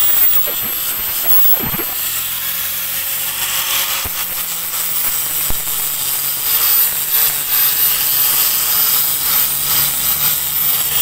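Angle grinder fitted with an 80-grit flap disc, sanding rough wood: a steady high motor whine over a loud grinding hiss.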